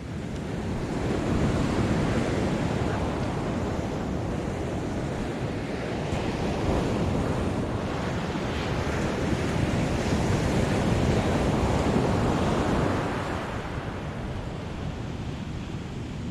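Ocean surf washing onto the beach, with wind buffeting the microphone. The rush builds about a second in and eases off near thirteen seconds.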